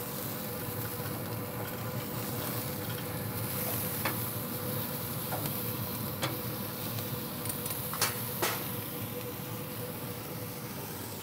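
Beef burger patties sizzling steadily on hot grill grates over a pellet grill's fire, with a faint steady hum underneath. A few light clicks of a metal spatula against the grates come in the middle of the stretch.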